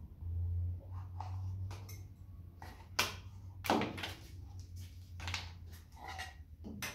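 A few short knocks and scrapes as a small wooden box and a roll of edge banding are handled and set down on the workbench, over a steady low hum. The sharpest knocks come about three seconds in and again just under a second later.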